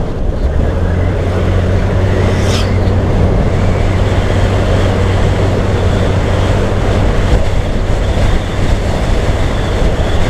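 Motorcycle engine held at steady high revs under full throttle, with wind rush over the microphone. A brief high chirp comes about two and a half seconds in.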